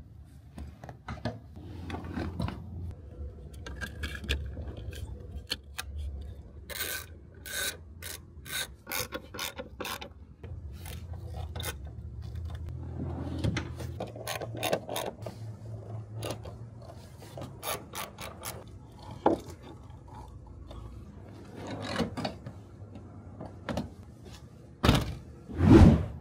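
Hand-tool work on a seat: scattered sharp clicks and rubbing, with a quick run of clicks about a third of the way in and two loud thumps near the end.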